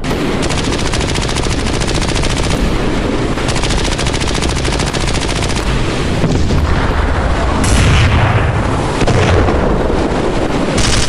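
Rapid machine-gun fire in one long continuous burst, followed about eight seconds in by heavier, deeper blasts with a low rumble.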